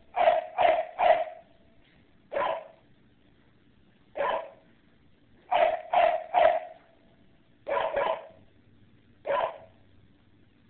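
Dog barking in short barks, some single and some in quick runs of two or three, every second or two.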